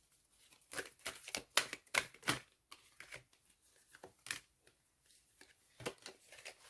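A tarot deck being shuffled and handled: a string of short papery snaps and flicks, thick in the first couple of seconds, then a few single ones.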